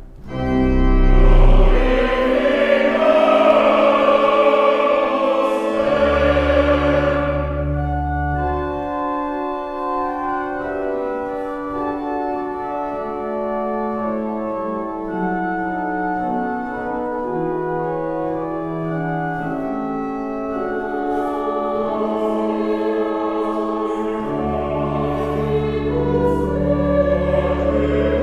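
Mixed choir singing a Mass setting with organ accompaniment. Full singing and deep organ bass swell at the start and again near the end, with quieter held chords in between.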